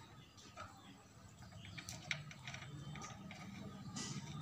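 Faint scattered plastic clicks and handling noises from an amplifier's panel-mount fuse holder cap being screwed back into the rear panel by hand.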